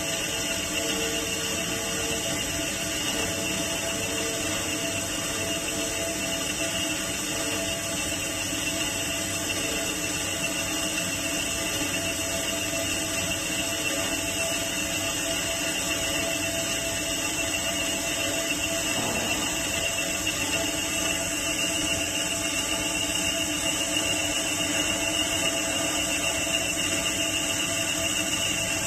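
Metal-cutting band saw running steadily, a continuous machine noise with a few steady tones and no pauses.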